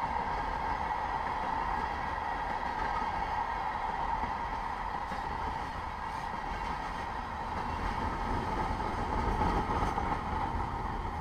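Portland and Western freight train rolling past close by: the steel wheels of covered hopper cars on the rails make a steady rumble with a steady ringing tone over it. It is loudest near the end as the locomotive goes by, then starts to fade.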